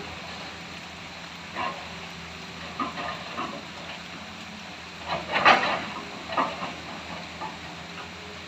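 Hitachi excavator's diesel engine running steadily, with several short louder bursts of noise from the work, the loudest about five and a half seconds in.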